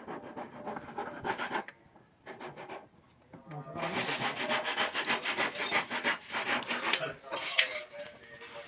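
Repeated rasping strokes of a hand tool worked over wood, quick and even. They are softer at first, pause briefly, then come back louder near the middle.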